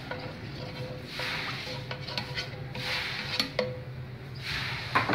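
Spoon rubbing and scraping around a nonstick frying pan, spreading cooking oil, with a few sharp clinks against the pan near the end.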